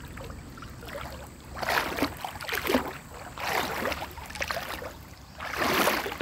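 Feet wading through shallow river water over a stony bed: a swish and slosh of water with each step, about one a second.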